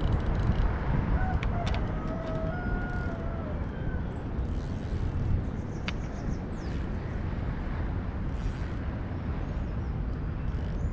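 Wind rumbling on the microphone at the shore, with a brief wavering whistle about a second in and a few faint clicks.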